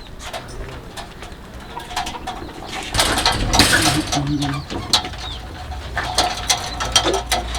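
Domestic pigeons cooing in low, drawn-out notes, with scattered clicks and a loud rustling burst lasting about a second, starting about three seconds in.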